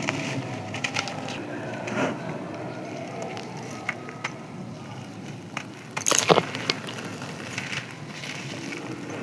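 Dry, crispy sand-cement being crushed and crumbled: scattered crunches and crackles, with a louder burst of crunching about six seconds in.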